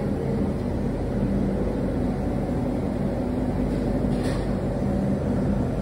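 Steady low mechanical drone with a constant low hum, with a faint click about four seconds in.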